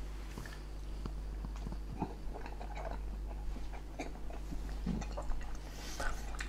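Faint chewing and mouth sounds of a man eating a forkful of pappardelle in bolognese sauce, with scattered light clicks, over a steady low hum.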